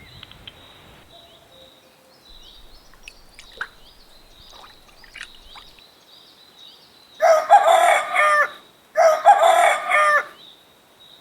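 Rooster crowing twice, each crow a little over a second long, after several seconds of faint scattered chirps.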